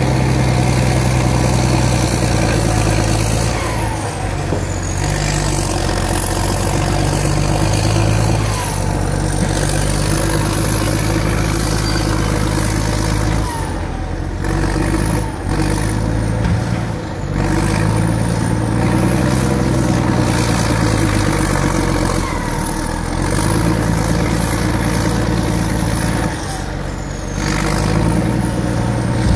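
Caterpillar D8 bulldozer's diesel engine working under load as it clears the road. The engine note rises and falls with the load, and high whining glides come and go every few seconds. An excavator works close by.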